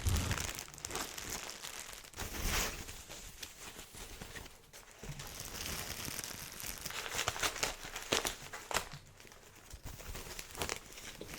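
Packaging crinkling and rustling as it is handled and pulled open, with irregular sharp crackles and some tearing.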